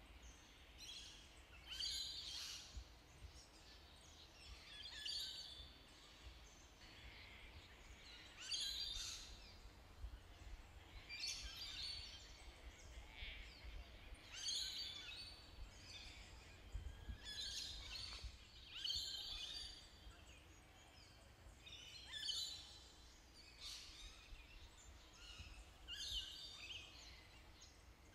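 Short, high-pitched squeaky calls, repeated every one to three seconds, over a faint steady background hiss.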